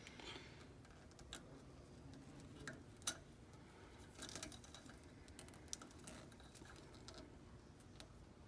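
Near silence with a few faint, scattered small clicks from hands handling the encoder cable and its fastenings on the quilting machine's carriage; the sharpest click comes about three seconds in.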